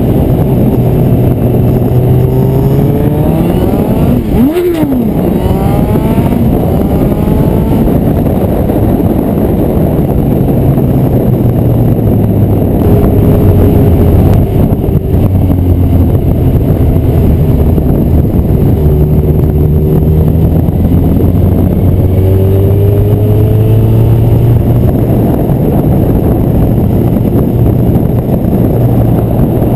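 Honda CB1000R's inline-four engine running through an ixil Hyperlow exhaust while the motorcycle is ridden, the revs climbing and dropping back again and again as it pulls through the gears. Heavy wind noise buffets the tank-mounted camera.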